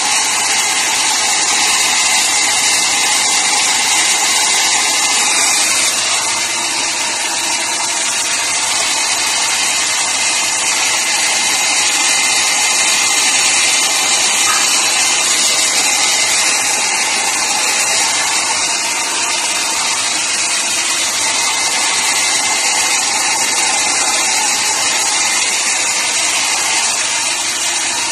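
Small handheld hair dryer running steadily while blow-drying a dog's fur: a loud, even rush of air with a faint steady high whine.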